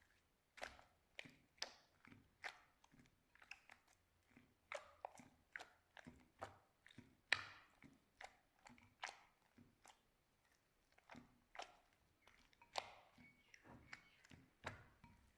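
Slime squeezed and pressed by hand, giving a string of sharp, wet clicks and pops, about two a second, with one louder pop about seven seconds in.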